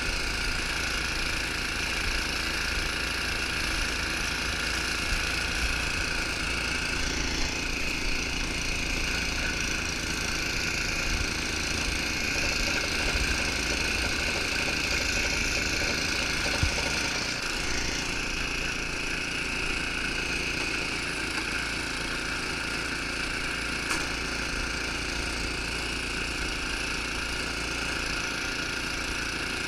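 Snowblower engine running steadily under load as the machine throws snow out of its chute. One short knock stands out a little past halfway.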